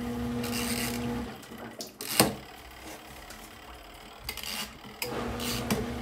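Portable twin-tub washing machine's wash motor running with a steady hum, stopping about a second in. A sharp click comes about two seconds in, and the motor starts up again about five seconds in.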